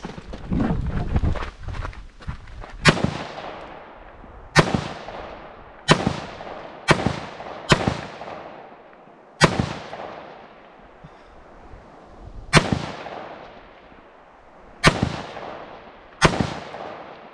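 Nine single rifle shots from an AR-style rifle, the first about three seconds in, fired at an uneven, deliberate pace one to three seconds apart. Each sharp crack is followed by a trailing echo.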